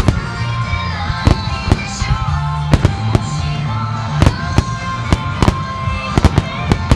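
Aerial fireworks bursting in a rapid starmine barrage: more than a dozen sharp bangs at irregular intervals, several close together near the end. The bangs sound over continuous music with held notes and a steady bass.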